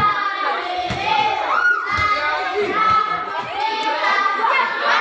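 A group of children's voices talking and shouting over one another, with no pause.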